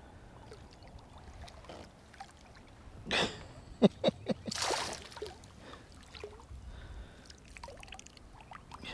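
Water splashing as a hooked red drum thrashes at the surface beside a kayak: a splash about three seconds in, a quick run of sharp knocks, then a louder splash.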